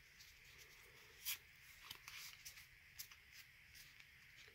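Near silence with a few faint soft rustles and clicks of trading cards being handled and flipped, the most distinct about a second in.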